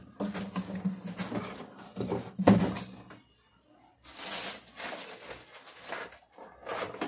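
Rustling and clattering as plastic packaging and white plastic table-fan parts are handled, with a sharp knock about two and a half seconds in and a short lull just after.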